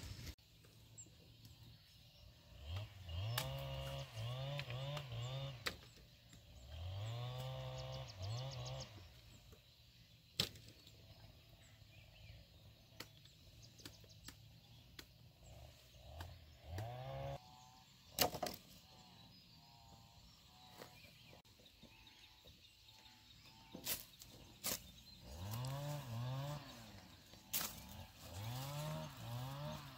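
A small engine revved in short bursts, its pitch rising with each blip, in several groups of three or four. A few single sharp knocks fall between the groups.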